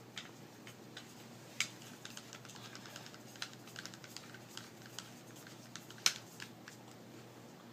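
Light metallic clicks and rattles from a Glock 27 pistol being handled while its slide is fitted back onto the frame. There are scattered small ticks, with a sharper click about a second and a half in and the loudest click about six seconds in.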